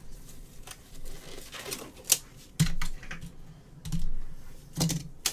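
Typing on a computer keyboard: irregular key clicks, with a few heavier knocks from about halfway through.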